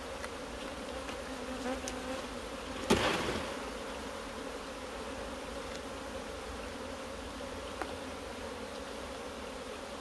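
Honeybees from an opened hive buzzing in a steady hum as frames are lifted out and checked. One sharp knock sounds about three seconds in.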